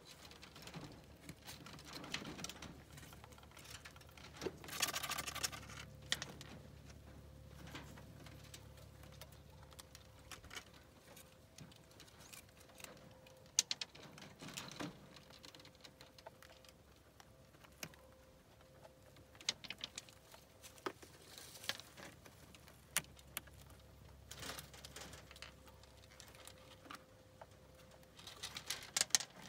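Three-week-old rabbits chewing feed pellets from a metal feeder: faint, irregular small clicks and crunches, with a louder rustle about five seconds in and another cluster near the end.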